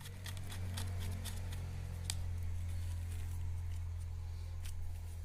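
Plastic parts of a car phone holder being handled and fitted together, giving scattered light clicks and rattles, with one sharper click about two seconds in.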